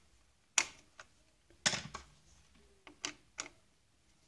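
About half a dozen sharp clicks and knocks of small screws and a screwdriver against the plastic parts of a Saeco Royal coffee grinder unit being fastened, the loudest about a second and a half in.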